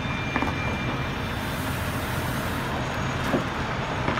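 Diesel engine of a semi tractor running steadily as it slowly pulls a loaded tri-axle end-dump trailer along the street, with a couple of light knocks.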